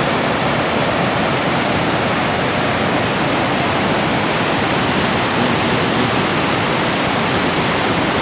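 Fast-flowing floodwater rushing through a village street, a loud, steady roar of churning water.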